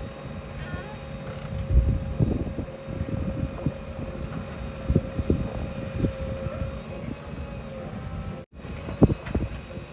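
JCB 3DX backhoe loader's diesel engine running with a steady note, amid scattered knocks and thuds: a heavy thud about two seconds in and a sharp knock near the end.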